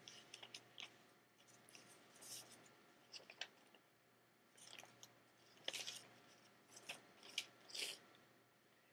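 Quiet room tone broken by faint, scattered rustles and clicks of small handling noises, a dozen or so short bursts spread irregularly through the pause.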